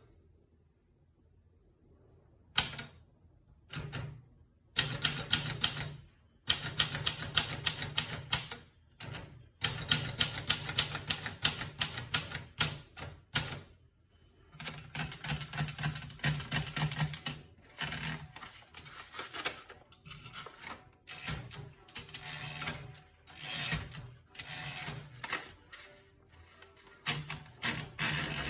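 Olivetti Lettera 32 portable manual typewriter being typed on: runs of rapid key strikes broken by short pauses, starting about two and a half seconds in.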